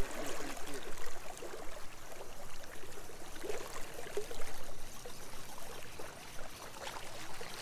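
Fast canal current swirling and rushing past the bank, a steady wash of moving water.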